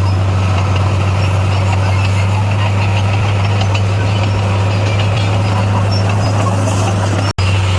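Bulldozer's diesel engine running at a steady speed with a deep, even drone. The sound cuts out for a split second near the end.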